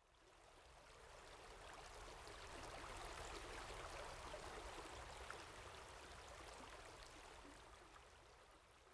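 Faint flowing river water, fading in and then out again.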